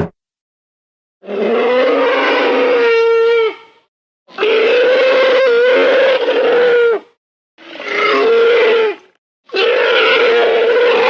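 Stock dinosaur roar sound effects: after about a second of silence, four roars one after another with short silent gaps between them, the third one shorter than the rest. Each roar holds a steady pitch with a rough, growling edge.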